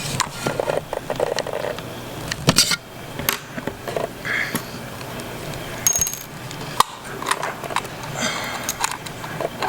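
Small tools and metal parts clicking and scraping against an iPhone 5's insides as its logic board is worked loose, a string of scattered sharp clicks and ticks.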